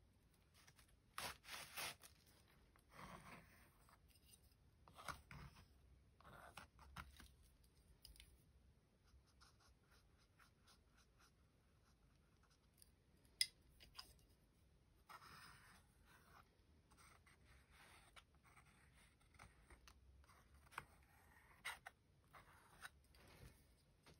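Faint scratchy strokes of a paintbrush and hands moving over a paper sketchbook page, in short irregular bursts, with one sharp click about halfway through.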